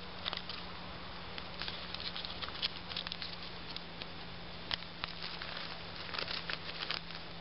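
Small wood fire crackling in a camp stove under a pot: irregular crackles and ticks over a steady hiss.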